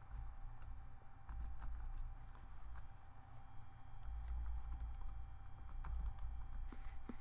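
Typing on a computer keyboard: irregular, quick keystroke clicks over a low steady hum.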